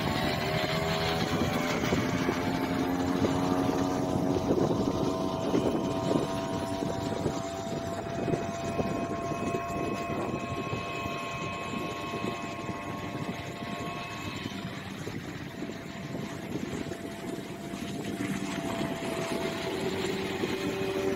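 A 5-horsepower outboard motor on an inflatable boat running at speed as the boat planes. Its pitch rises over the first second or so, then holds steady; it grows fainter in the middle as the boat moves off and louder again near the end.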